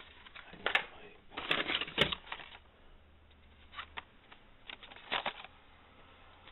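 Plastic blister packs of Hot Wheels cards clacking and crinkling as they are handled and shuffled, in clusters of sharp clicks: the busiest stretch is between one and three seconds in, with smaller bursts near four and five seconds.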